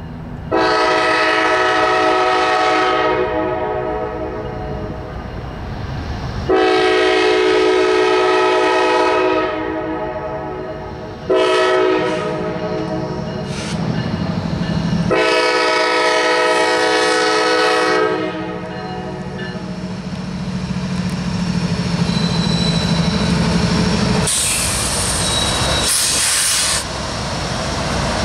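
Horn of a CSX GE ET44AH locomotive sounding the grade-crossing signal: two long blasts, one short, one long. Then the diesel engines of the two ET44AH units rumble steadily as they pass, with a brief high hiss near the end.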